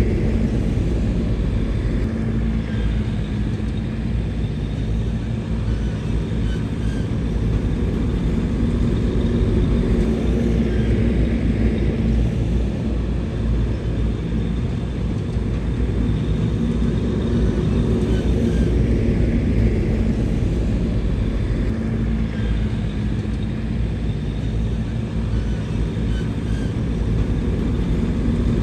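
Bulldozer's diesel engine running steadily, a deep, continuous rumble that swells and eases a little now and then.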